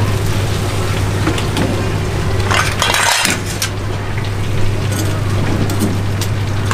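Metal tongs clinking and scraping against a wire deep-fryer basket of fried pork cutlets, over a steady low hum. A short hissing rush comes about two and a half seconds in.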